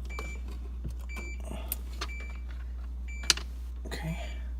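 Plastic parts of a refrigerator ice maker compartment being handled and pushed into place: scattered light clicks and knocks, with one sharp click about three seconds in. A steady low hum runs underneath.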